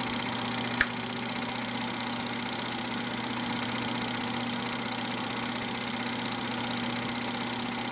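Film projector running, its mechanism chattering in a fast, even rhythm over a steady motor hum, with one sharp click a little under a second in.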